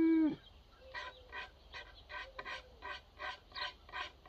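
A short, pitched animal call right at the start, the loudest sound. Then quick, even scraping strokes, about three a second, of a small hand-shaving tool, like a miniature drawknife, on a red elm axe handle. It is taking tiny amounts off to fit the axe head.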